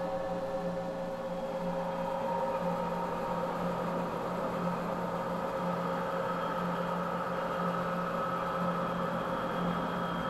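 Steady droning hum of several held tones over a hiss, without any beat or change.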